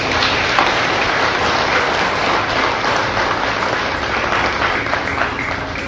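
Seated crowd applauding, steady clapping that eases off near the end.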